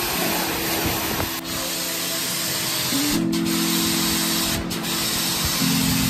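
High-pressure water jet from a 1900-watt electric pressure washer's spray gun, a steady hiss. Background music with sustained notes plays alongside.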